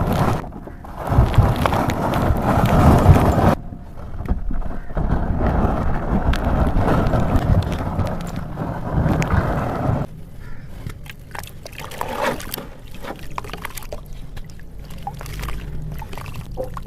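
Red dirt and coal being crumbled and crushed, a gritty crunching. It is dense and loud for about the first ten seconds, broken by abrupt changes, then thins to scattered crackles of smaller crumbs.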